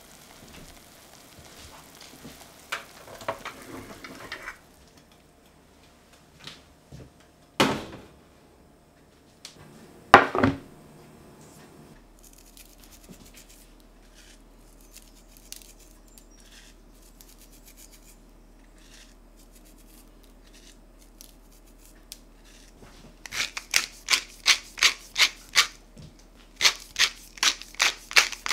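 Two sharp knocks about eight and ten seconds in. Near the end, a hand-twisted spice mill grinding seasoning onto raw pork chops in two runs of quick, even grinding clicks, about three or four a second.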